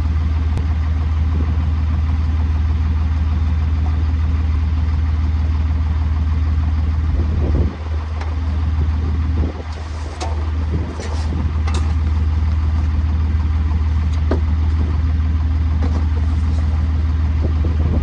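Tractor engine idling steadily with a constant low hum. Around the middle there are brief rustles and knocks from the canvas cover being pulled off the grain auger's hopper.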